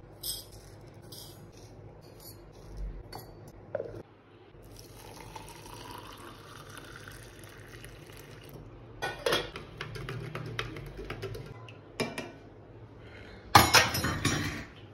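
Hot milk poured from a saucepan into a steel tumbler, the pour's pitch rising as the tumbler fills, followed by clinks and knocks of steel utensils, the loudest a clatter near the end. A few light spoon taps come first.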